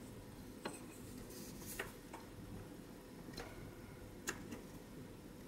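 A whittling knife cutting small stop cuts into a koa-wood figure: about five faint, sharp clicks spread a second or so apart as the blade bites in and chips come away.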